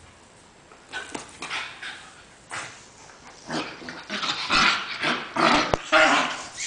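A bull terrier puppy and a miniature schnauzer play-fighting, making short, rough dog vocal outbursts. The outbursts start about a second in and come faster and louder near the end.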